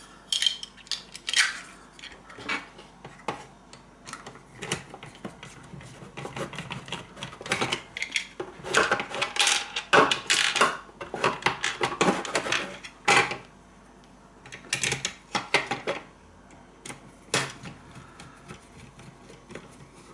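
Hard plastic parts of an electric shower clicking and knocking against one another and against its plastic casing as a switch assembly is fitted back in and worked on with a screwdriver. The irregular clatter is busiest about halfway through and thins out near the end.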